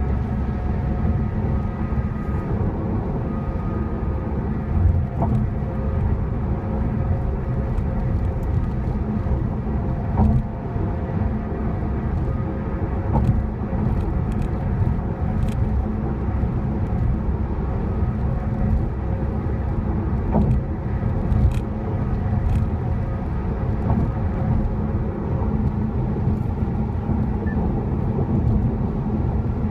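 Steady road and engine noise of a car cruising on a highway, heard from inside the cabin: a continuous low rumble of tyres and engine, with occasional light clicks and small bumps.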